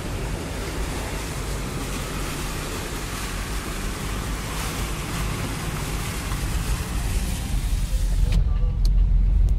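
Steady rush of floodwater pouring over a pond's spillway weir, with low wind rumble on the microphone. About eight seconds in the hiss cuts off suddenly, leaving the low rumble of the car's interior.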